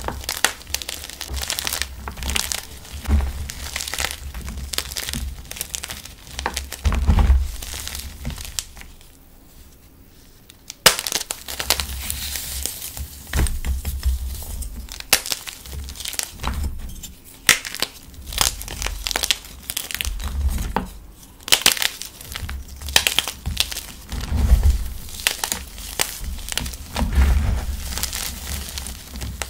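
Hands crushing and crumbling brick-hard Mute gym chalk blocks, a dense run of crunching and cracking as chunks break apart. It goes quieter for about two seconds around a third of the way in, then a single sharp crack.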